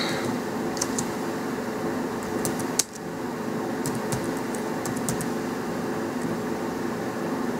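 Computer keyboard typing: scattered sharp key clicks in a few short runs over a steady background hum.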